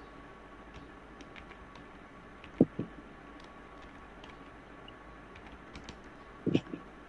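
Typing on a computer keyboard: a scatter of light key clicks, with two louder double knocks, one about two and a half seconds in and one near the end.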